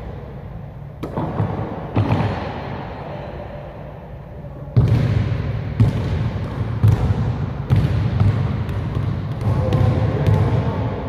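A basketball being dribbled on a gym floor: separate sharp bounces, a couple in the first half and then about one a second from about halfway in, each with an echo in the large hall.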